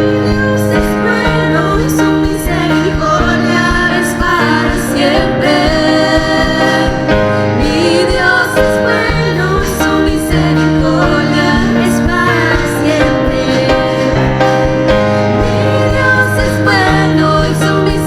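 Live gospel worship music: instruments hold slow sustained chords, the bass changing every couple of seconds, while a woman sings a wavering melody over them.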